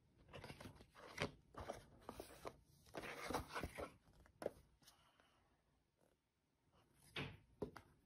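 Paper rustling and crinkling as the pages of a printed instruction manual are handled and turned: a cluster of irregular crackles for the first few seconds, a short pause, then a couple more near the end.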